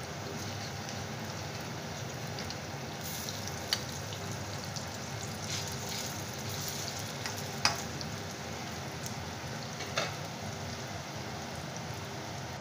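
Bottle gourd kofta balls deep-frying in hot oil in a kadhai: a steady sizzle, with three sharp clicks about four, eight and ten seconds in.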